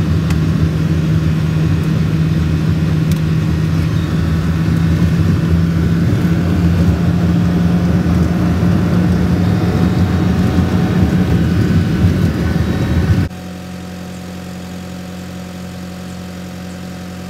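Vehicle engine running while driving, heard from inside the cab with road noise. About thirteen seconds in it cuts abruptly to a quieter, steady engine idle, the Tadano truck crane's engine.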